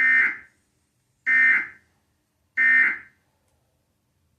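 Emergency Alert System end-of-message signal: three short, harsh buzzing bursts of SAME digital data tones, each about half a second long and evenly spaced about 1.3 seconds apart.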